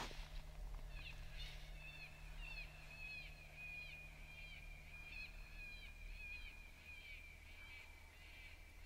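A rapid series of short, high-pitched chirping calls, about three or four a second, over a thin steady whistle.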